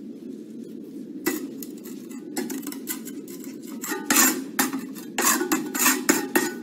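Steel brick trowel scraping and clinking against bricks and mortar as mortar is worked onto a brick's end for the head joint. A series of short scrapes and taps begins about a second in and comes thickest in the second half.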